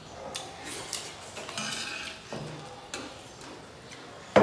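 Tableware sounds while eating: a spoon scraping and tapping in a small brass bowl and light clinks on metal dinner plates. One sharp metallic clink near the end is the loudest sound.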